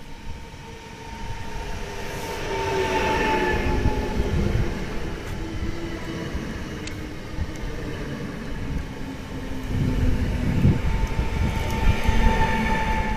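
Koleje Dolnośląskie electric multiple unit 48WEc-039 moving past on the rail line, with rumble of wheels on track under an electric traction-motor whine that slides in pitch. It is loudest a few seconds in and again near the end, with one sharp click about 7 seconds in.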